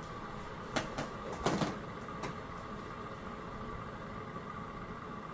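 Steady low background hum of a small room, with a few brief soft clicks or knocks about a second in.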